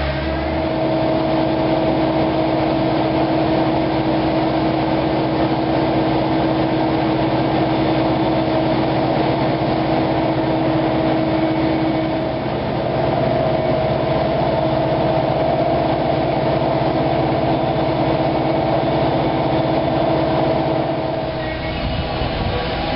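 An engine running steadily at constant speed, a continuous drone with steady tones; one of the tones drops out about halfway through.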